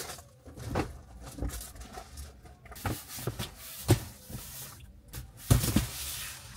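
Large cardboard box being pushed into a car's back seat: a series of knocks and thumps as it bumps the seats and interior, then a longer scraping slide about five and a half seconds in.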